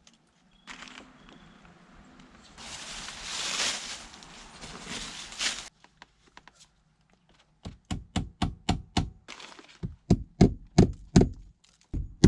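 Scraping and rustling, then, from about eight seconds in, a rapid run of sharp knocks, about three a second. The knocks are blows breaking loose a fitting whose screws are rusted.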